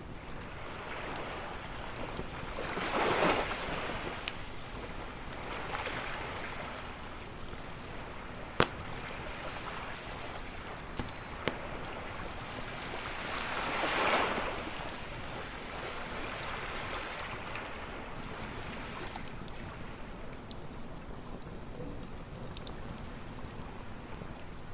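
Ocean waves washing in and out, swelling about three seconds and again about fourteen seconds in, over a crackling wood campfire that gives a few sharp pops, the loudest about nine seconds in.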